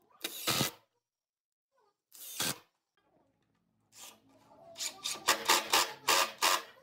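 Cordless impact driver driving screws into pine boards: a short burst near the start, another about two seconds in, then from about four seconds a longer run of rapid stuttering bursts as a screw is driven home.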